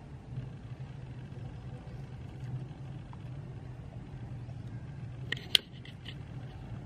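A steady low hum with a short burst of sharp clicks about five and a half seconds in.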